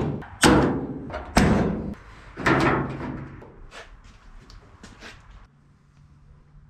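Four heavy knocks on sheet-metal bodywork, each with a short ring, followed by a few lighter clicks; after about five seconds it falls nearly quiet.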